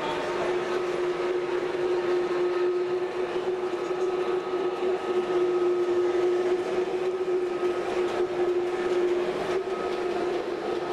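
Model train running on an exhibition layout, with a steady, even hum that holds one pitch over a continuous background hiss.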